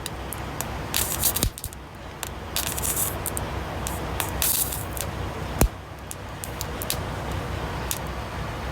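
Short hissing bursts with scattered sharp clicks and scrapes from hands-on work at a punctured truck tire being plugged, over a steady low rumble.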